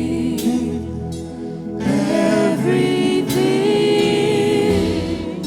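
Gospel worship music: sung voices holding a melody over band accompaniment, with cymbal crashes.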